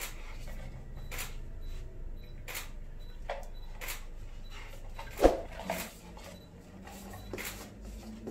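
Scattered light clicks and taps from a golden retriever puppy moving on a wooden floor with paper cups dangling on strings around her, the cups bumping and her paws tapping, with one louder knock about five seconds in.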